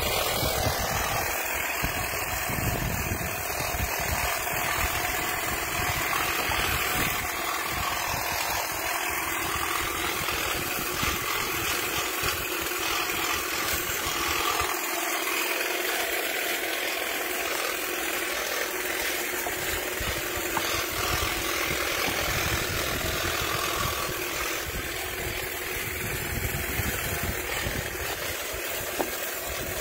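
Cordless electric hedge trimmer with a 24-inch dual-action blade running steadily as it cuts into a leafy hedge. It comes on suddenly and then holds at an even, loud level.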